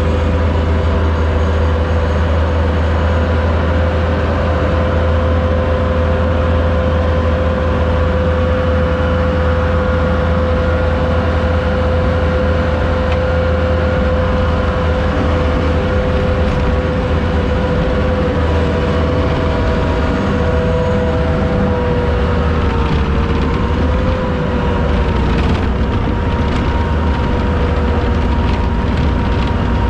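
Truck engine and road noise heard inside the cab, a steady low rumble with a constant drone whose pitch dips briefly about two-thirds of the way through.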